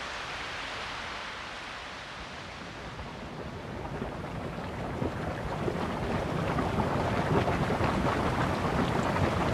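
A boiling grey hot spring in a hydrothermal basin, churning and bubbling. A steady hiss gives way about four seconds in to denser crackling and bubbling that grows louder.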